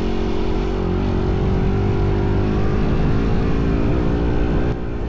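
Motorcycle engine running steadily while riding, its pitch wavering slightly.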